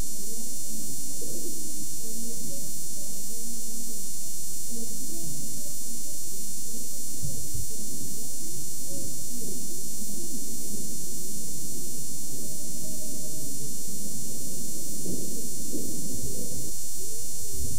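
Muffled, indistinct voices over a steady buzz and hiss from worn videotape audio, with low bumps about seven seconds in and near the end.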